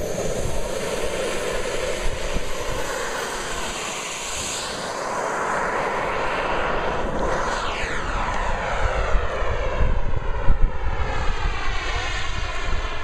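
Radio-controlled Saab JAS 39 Gripen model jet's engine running at power through its takeoff run and climb-out, a steady rushing whine whose tone sweeps as the jet passes and climbs away in the second half.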